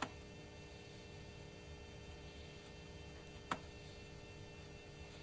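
Two sharp clicks about three and a half seconds apart as a small screwdriver works a screw into a Titanium PowerBook's metal base plate, over a steady low hum.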